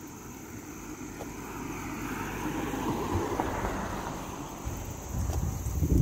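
Wind rushing over the phone's microphone. The noise swells and fades about halfway through, then heavy low buffeting gusts hit near the end.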